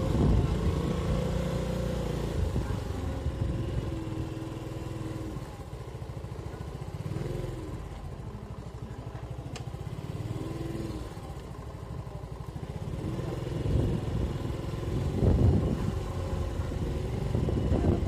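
Small motorcycle engine running at low speed while riding along, with a steady low rumble. It is louder at the start and again near the end.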